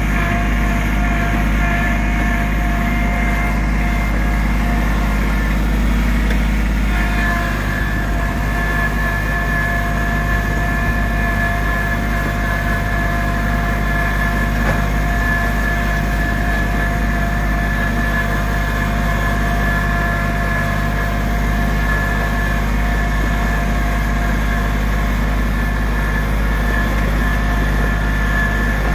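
Compact tractor engine running steadily, with a steady whine over the low rumble.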